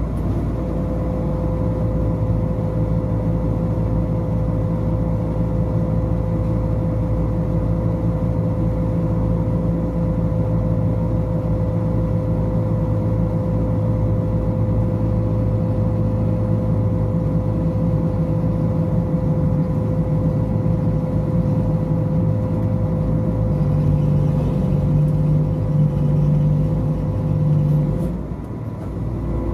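Hitachi Sumitomo dredging crane's diesel engine and hydraulics running steadily under load, with a steady whine over the engine drone, as the bucket is worked from the joysticks. The engine note grows heavier about six seconds before the end, then eases off and the whine stops near the end.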